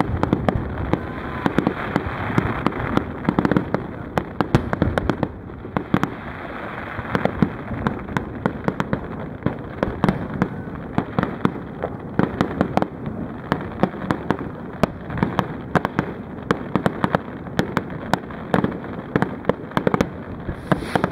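Fireworks display: shells bursting in rapid succession, a continuous stream of sharp bangs and crackles overlapping one another.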